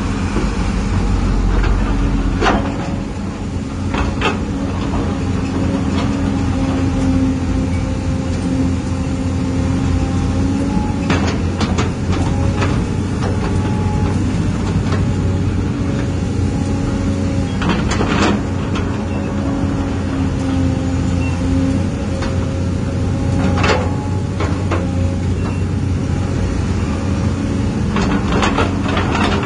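Hydraulic pump of a radio-controlled Komatsu PC360 model excavator running with a steady whine over a low hum, its pitch shifting every several seconds as the boom and bucket move. Sharp clatters of dirt and stones come now and then as the bucket digs and dumps its load into a model dump truck's bed.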